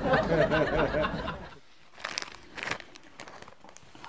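A person's voice in a rapid run of short rising-and-falling pulses, stopping about a second and a half in. A few short breathy, hissing sounds follow around the middle.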